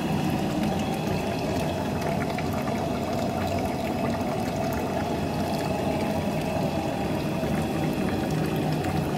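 Hot wort pouring in a thin stream from a cooler mash tun's spigot into a stainless steel boil kettle, a steady splashing into the shallow liquid already in the pot.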